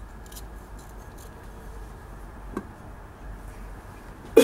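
Quiet room hiss with a single faint knock about two and a half seconds in as the copper pipe is set down on the wooden blocks; a man's throat-clearing cough starts at the very end.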